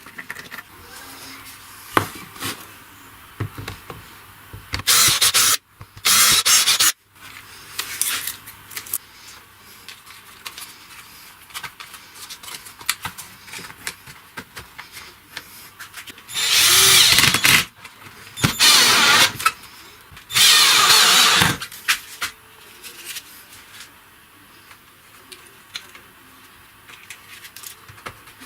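A handheld power tool run in five short bursts of about a second each, with handling knocks and clicks between them.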